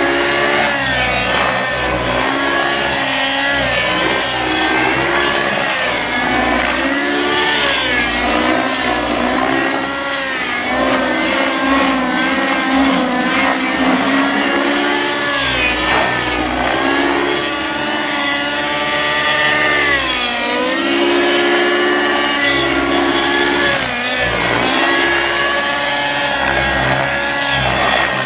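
Nitro glow engine and rotors of an Aeolus 50 radio-controlled helicopter in aerobatic flight, the engine note repeatedly rising and falling in pitch through the manoeuvres.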